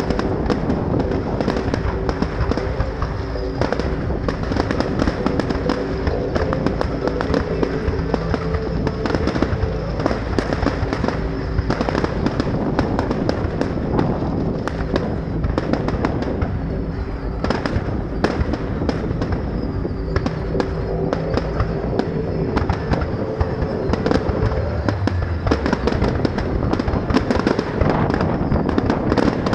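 Fireworks display: a dense, unbroken barrage of bangs and crackling, with music playing underneath.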